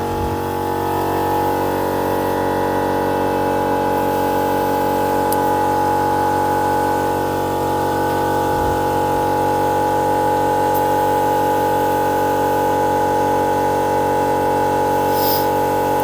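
Air compressor kicking back in and running steadily, a quite noisy hum with a stack of steady tones, as it refills its tank while the tyre is reinflated. A short hiss near the end.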